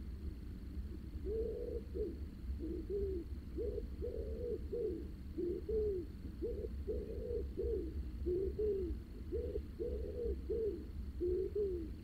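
A pigeon cooing: a long run of low, arching coos in short rhythmic phrases, starting about a second in, over a steady low rumble.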